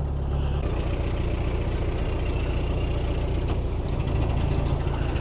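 Narrowboat diesel engine idling steadily, a low even hum whose note shifts slightly about half a second in.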